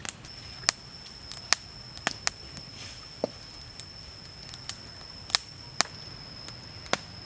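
Wood fire crackling, with about ten sharp pops at irregular intervals, over a steady high-pitched whine.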